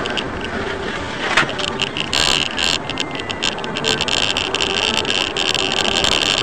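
A car driving: steady road and engine noise with scattered clicks and knocks.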